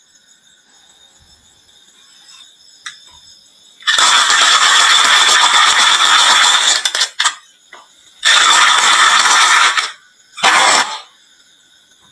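Many marbles clattering down a wooden marble run in three loud rushes: a long one about four seconds in lasting some three seconds, a shorter one a second later, and a brief one near the end.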